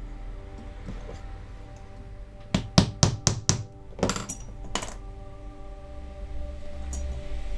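Small hammer tapping a diecast metal casting to straighten a bent pillar: about five quick, sharp taps, then a few more, over steady background music.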